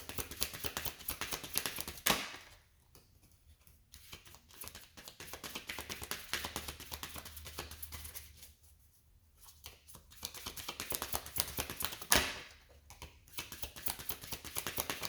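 Tarot cards being shuffled by hand in rapid runs of papery clicks, broken by two sharp knocks about two seconds in and near the end, as the deck is tapped down.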